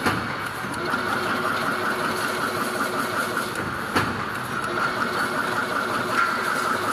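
Automatic chain link fence machine running, a steady mechanical noise with a sharp clack just after the start and another about four seconds in.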